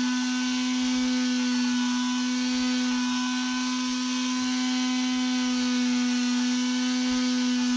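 Random orbital sander running steadily, its pad pressed against a plastic helmet piece: a constant motor hum with a hiss of sanding over it.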